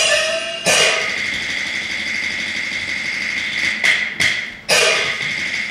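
Peking opera percussion accompanying a staged fight: metal cymbal and gong strikes over a steady metallic ring. One crash comes about a second in, then three more close together near the end.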